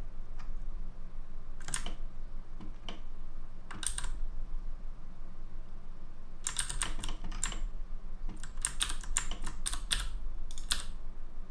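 Computer keyboard keystrokes: a few scattered single key presses at first, then quicker clusters of clicks in the second half as Alt-key shortcuts are typed.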